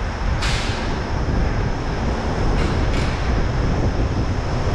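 Wind rumbling on the microphone, with a sharp hiss of escaping air from a semi truck's air brake system about half a second in and two shorter hisses near the three-second mark.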